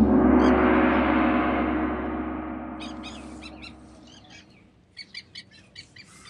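A gong struck once, ringing out and fading slowly over about four seconds, laid in as an edited sound effect with the lure's title card. Birds chirp several times in the second half.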